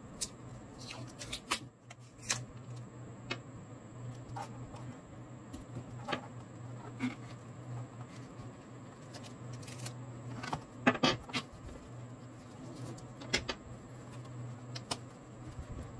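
Hands handling corrugated cardboard and packing tape: scattered light taps, clicks and rustles, with a few sharper clicks about two-thirds of the way through, over a steady low hum.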